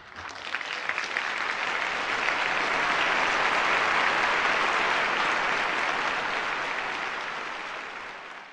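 Audience applauding, swelling over the first few seconds and fading away near the end.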